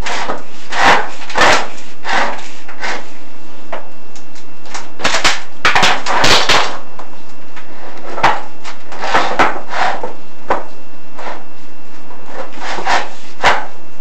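Chimney inspection camera and its cable scraping and knocking against the inside of a furnace flue as it is lowered. The sound is a string of irregular scrapes and knocks, thickest about five to six seconds in.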